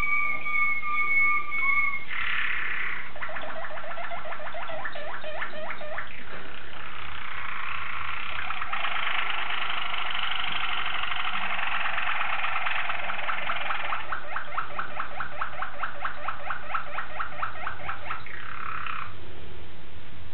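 Waterslager (Malinois) song canary singing. It holds a steady whistled note for about two seconds, then goes into long, fast trills and bubbling, water-like rolls, which stop a little before the end.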